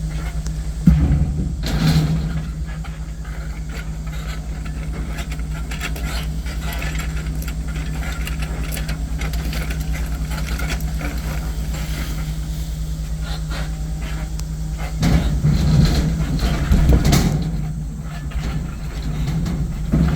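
Heavy logging machine's engine running steadily, with louder surges and knocks about a second in and again for several seconds near the end as it handles the timber.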